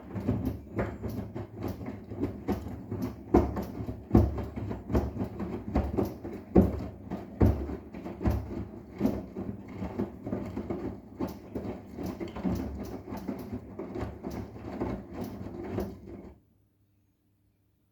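Arçelik 10121 washing machine drum turning with a wet sofa cover inside, giving irregular thuds and knocks over a low motor hum; it stops suddenly near the end.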